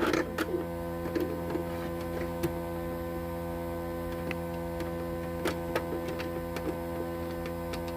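Steady electrical hum, even in level, with a few faint scattered clicks.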